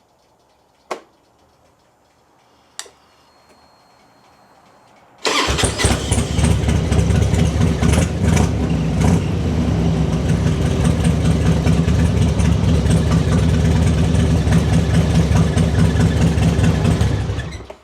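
2002 Harley-Davidson Road King's Twin Cam V-twin engine, after a couple of clicks and a faint high whine of the fuel pump priming, starts at once about five seconds in and runs steadily for about twelve seconds before being shut off near the end. It fires quickly on a freshly charged battery, which the owner takes as a sign that the earlier no-start, with only clicking, was a weak battery rather than the starter.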